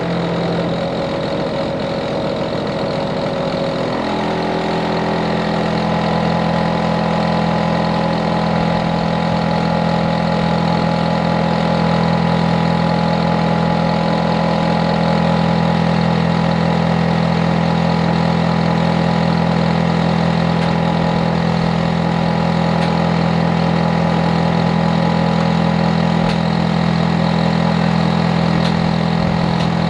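Hitachi air-conditioner outdoor unit running loudly: a steady low hum with several held tones. Its pitch changes about four seconds in, then holds steady. The uploader treats this level of noise as a nuisance.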